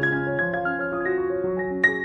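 Background instrumental music: a keyboard melody of held notes changing every fraction of a second.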